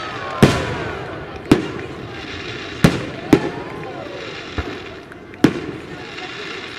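Aerial firework shells bursting in a display: five loud, sharp bangs at irregular intervals, each trailing off in a short echo.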